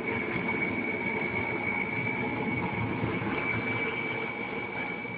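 Steady background noise with a thin, steady high-pitched whine through it, easing slightly near the end.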